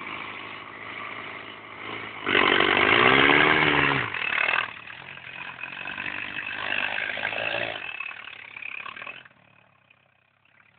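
Off-road buggy engine running. About two seconds in it revs hard, the pitch rising and falling back, then it keeps running and fades away near the end.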